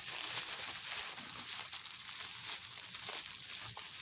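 Soft, continuous crinkling rustle of bubble wrap being handled and peeled off a boxed model locomotive.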